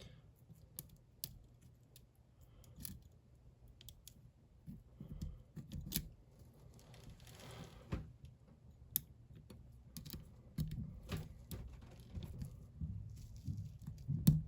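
Lock picks working the side pins of a hardened-steel bike lock cylinder: scattered, irregular small metallic clicks and ticks, with a short scrape about halfway through, as the pins are probed one by one.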